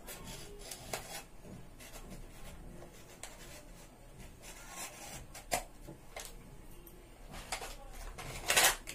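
A small cardboard box being handled and opened by hand: scattered rubs, light clicks and paper scrapes, with one louder, brief rasp near the end.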